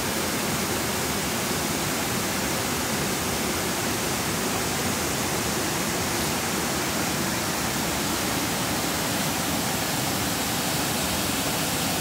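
Steady, even rush of water from a flooded river running high and fast.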